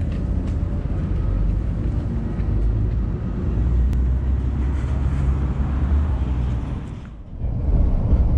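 Steady low rumble of city street traffic. About seven seconds in it dips and switches to the rumble of a moving vehicle crossing a bridge, heard from inside.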